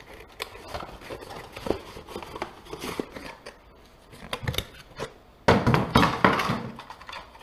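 Cardboard box packaging and paper being handled and pulled out of a box: scattered light taps and rustles, with a louder stretch of cardboard and paper rustling lasting about a second, a little past the middle.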